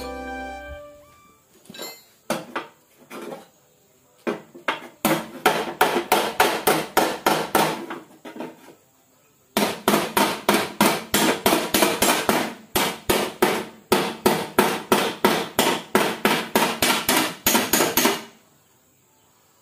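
Hammer blows on the crumpled steel inner fender and front apron of a crash-damaged Toyota Hilux, beating the bent panel back into shape. After a few separate strikes come two long runs of quick, even blows, about three to four a second, with a short pause in between.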